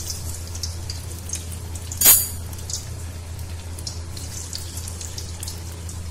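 Vegetable Manchurian balls frying gently in mustard oil in an iron kadai on a low flame, a light scattered crackle of sizzling pops. There is one sharp knock about two seconds in, and a steady low hum underneath.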